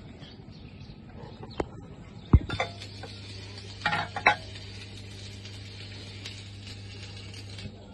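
A low steady hum with a few scattered knocks and clicks: one about one and a half seconds in, a loud dull thump about two and a half seconds in, and a pair close together about four seconds in.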